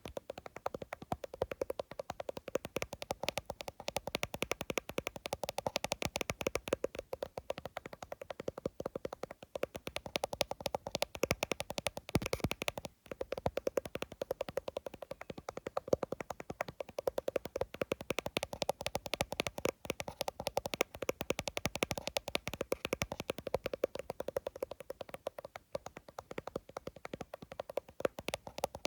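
Fingertips and nails tapping fast on an iPhone's glass and case, a rapid, unbroken run of sharp little clicks with a brief pause about thirteen seconds in.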